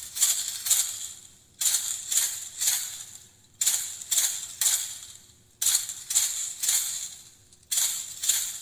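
Jingling metallic percussion played in a repeating pattern: a cluster of about four bright, shimmering strokes every two seconds, each cluster dying away before the next.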